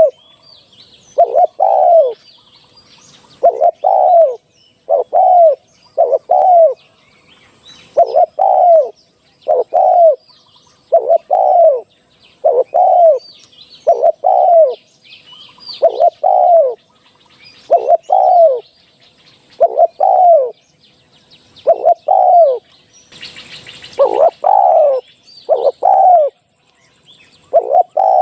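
Spotted dove cooing over and over, a live bird calling for use as a decoy: two arching coo notes at a time, repeated about every two seconds. Faint chirps of small birds sound behind it, and there is a brief rustling noise about 23 seconds in.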